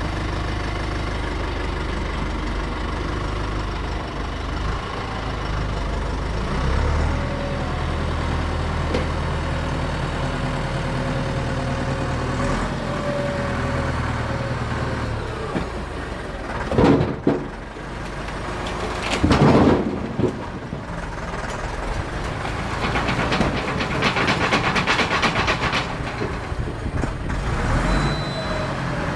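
Deutz DX 4.50 tractor's air-cooled diesel engine running steadily, with a held whine as the front loader works. A little past halfway come two brief, loud squeals, and in the last third the engine works harder for several seconds as the tractor moves.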